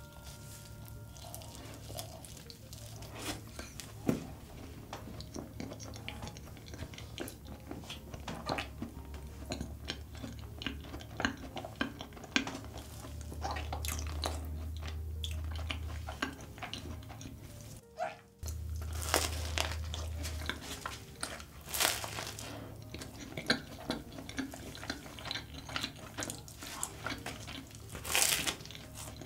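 Close-miked eating of a giant custard-cream choux puff drizzled with melted Nutella: chewing with many small mouth clicks, and a louder bite near the end.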